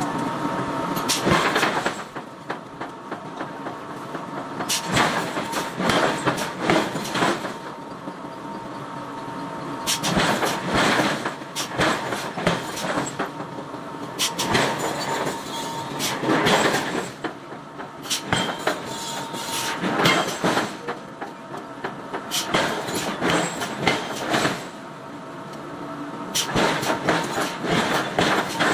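Hammer blows on hot iron being forged from a block into a bar, coming in bursts of rapid strikes with short pauses between.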